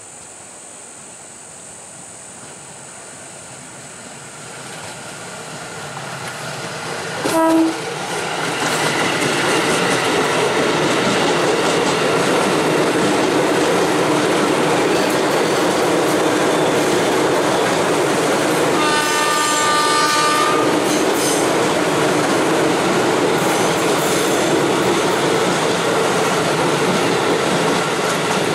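KRL Commuter Line electric train approaching, growing louder, and sounding one short horn blast about 7 s in. It then runs past close by with steady wheel rumble and clickety-clack, and a brief higher tone sounds about two-thirds through.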